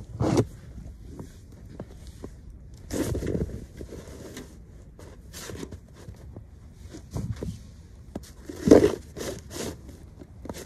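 Snow shovel scraping and scooping packed snow in irregular strokes a second or two apart, the loudest stroke near the end.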